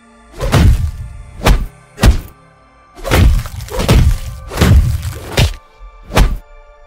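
Cleaver chopping into a body, heard as about eight heavy, irregular thuds, some with a wet, hissing smear. Underneath is a held, ominous music drone.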